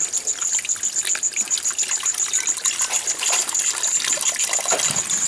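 Water pouring steadily from a split-bamboo spout and splashing over hands washing something in the flow. A high-pitched pulsing trill runs on behind it, several pulses a second.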